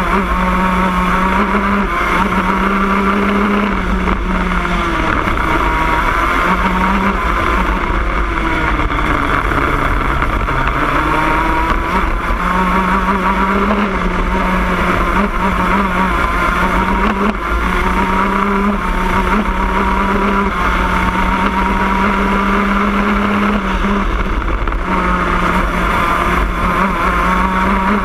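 Shifter kart's two-stroke racing engine at full racing pace, heard from onboard. It is loud throughout, and its pitch climbs and drops again and again as it revs through the gears on the straights and comes down for the corners.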